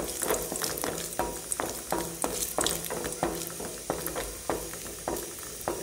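Wooden spatula stirring and scraping cashews frying in ghee in a metal kadai: irregular taps and scrapes of wood on metal, about two a second, over a faint sizzle.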